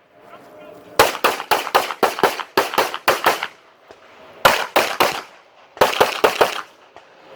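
STI Edge pistol fired in rapid strings: a long string of about a dozen quick shots, then two shorter strings of four or five shots after brief pauses.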